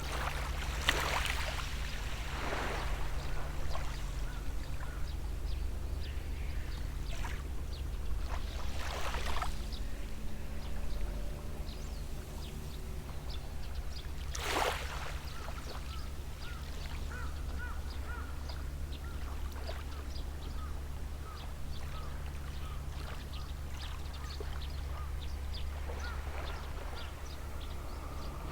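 Small sea waves washing onto the shore, each one a short swish, about five in all, over a steady low hum. Faint repeated bird chirps come in the second half.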